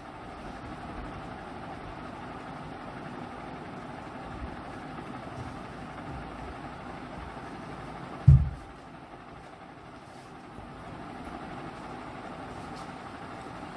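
Steady mechanical hum, with one loud low thump about eight seconds in.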